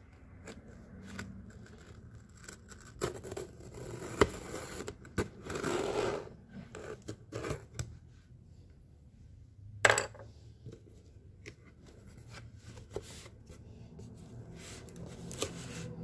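Packing tape on a cardboard shipping box being cut and the flaps pried open: irregular scrapes, rasps and rustles of tape and cardboard, with a couple of sharp clicks about four and ten seconds in.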